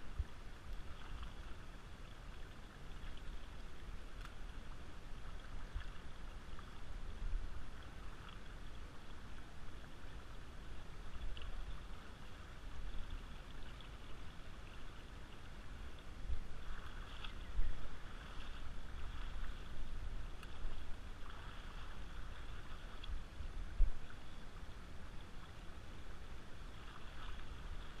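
Shallow river water flowing and sloshing around a wading angler, with a low wind rumble on the action camera's microphone. Two sudden louder bumps come about two-thirds of the way through and near the end.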